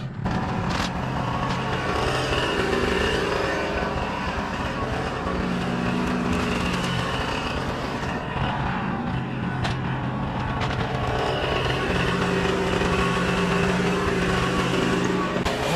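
Kubota compact tractor's diesel engine running under load while its front loader pushes brush. The engine note shifts up and down a few times.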